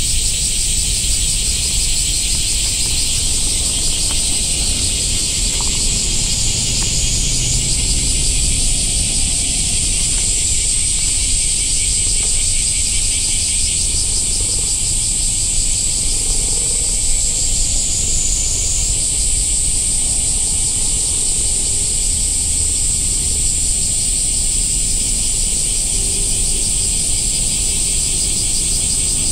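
Insects buzzing in a loud, steady chorus: a high sizzling drone that dips slightly in pitch twice, over a rapidly pulsing lower layer.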